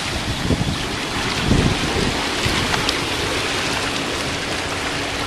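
Spa jets running, water churning and bubbling in a steady rush.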